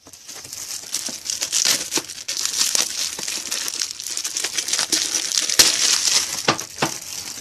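Plastic packaging crinkling and rustling with many small sharp crackles as hands handle and unwrap a pack of plastic card top loaders.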